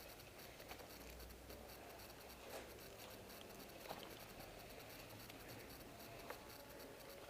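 Near silence with faint scratchy rustling and a few soft, scattered ticks.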